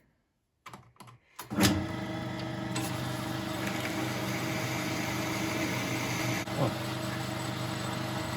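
A few clicks, then a machine tool's electric motor starts about a second and a half in and runs with a steady hum.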